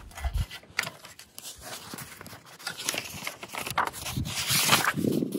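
Pages of a paper owner's manual being flipped and rustled in short, irregular bursts, busiest near the end.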